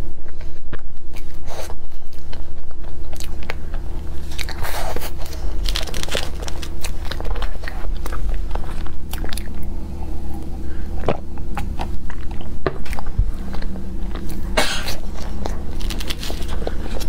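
Close-miked mouth sounds of a person eating soft layered crepe cake: wet chewing and smacking, with scattered sharp clicks, over a steady low hum.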